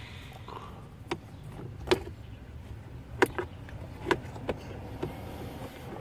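Several sharp clicks and knocks of hard parts being handled and fitted around a gear shifter, the shift boot retaining ring going over a short shifter, the loudest about three seconds in, over a low steady rumble.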